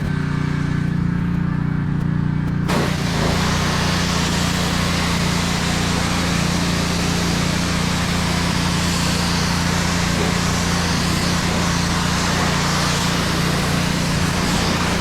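Pressure washer running with a steady hum; nearly three seconds in, the spray starts suddenly with a loud, steady hiss of the high-pressure water jet and keeps on.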